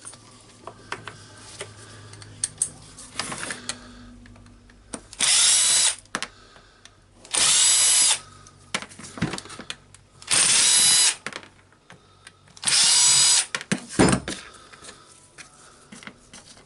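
A power screwdriver runs in four separate whirring bursts of about a second each, backing out the four screws that hold the rotary hammer's gear housing to its motor housing. Light clicks and taps of handled parts come between the bursts.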